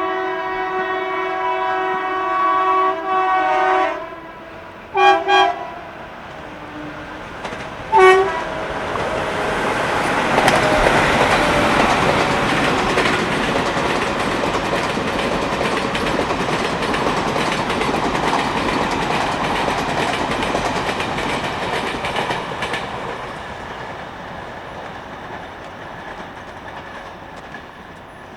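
WCAM-3 electric locomotive's horn sounding a long blast that stops about four seconds in, then two short toots and one more a few seconds later. Then the express train passes, its wheels clattering on the rails, and fades away near the end.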